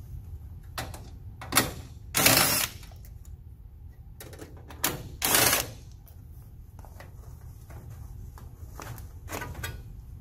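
Cordless driver running in two short bursts of about half a second each, backing out the sheet-metal screws of a fan-coil cabinet's drain pan support bracket, with sharp metal clicks and knocks between.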